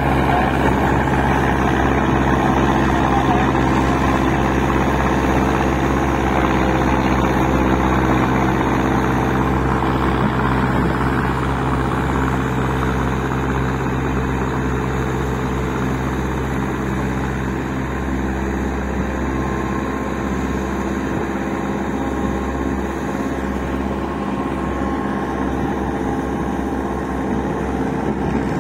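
Massey Ferguson 185 tractor on tracks, its four-cylinder diesel engine running steadily while working a flooded paddy field. It gets a little quieter about halfway through.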